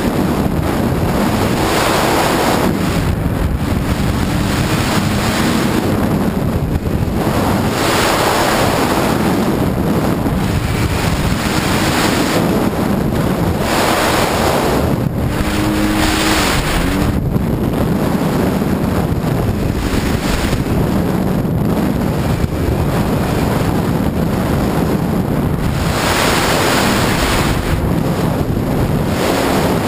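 Sea-Doo personal watercraft running across open water: water rushing and spraying past the hull with wind buffeting the microphone, swelling every few seconds, and a faint engine hum underneath.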